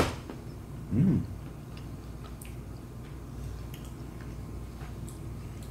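Two people quietly chewing soft no-bake cookie dough balls, with faint small wet mouth clicks. A sharp click comes right at the start, and a short hummed "mm" about a second in.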